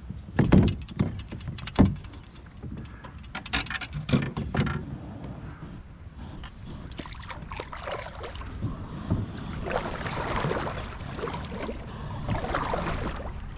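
Clicks, knocks and rattles of gear on a plastic pedal kayak for the first few seconds, then water swishing along the hull as the kayak moves, swelling and fading.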